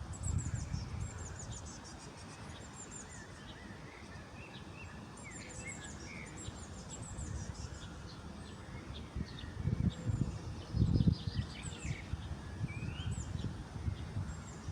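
Several small birds chirping and trilling in quick high-pitched phrases, with a low rumble that swells twice about ten seconds in.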